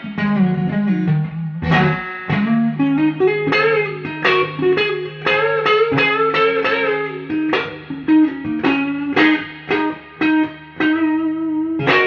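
Fender Stratocaster electric guitar played clean through Fender DeVille and Blues Junior tube amps with reverb and no overdrive: a run of sharply picked single notes and chords, each ringing out, over a held low note.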